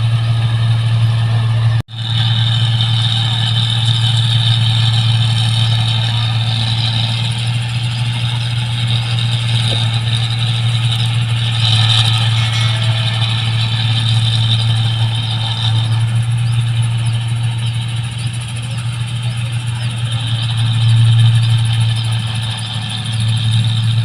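New Holland 1545 rice combine harvester running steadily, its engine hum and threshing machinery going without a break; the sound cuts out for an instant about two seconds in.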